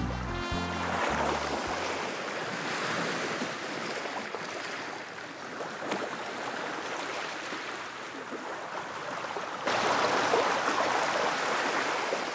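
The last notes of a big-band arrangement with trumpet fade out in the first couple of seconds, giving way to the sound of sea surf. The surf swells louder near the end and then cuts off suddenly.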